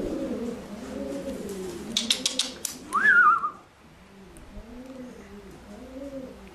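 Racing pigeons cooing repeatedly, low coos that rise and fall. About two seconds in comes a quick run of sharp clicks, then a short rising, wavering whistle, the loudest sounds here.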